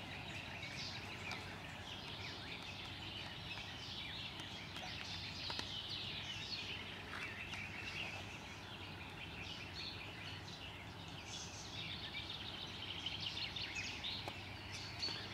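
Several small birds singing in the surrounding trees, a steady chorus of overlapping chirps and short whistled phrases, over faint background hiss.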